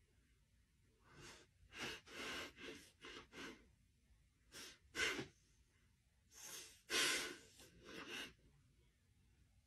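A dog sniffing hard at a person's face, nose pressed close: short breathy sniffs in three quick groups.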